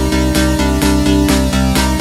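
Background electronic dance music with a steady, fast beat and a sustained bass line.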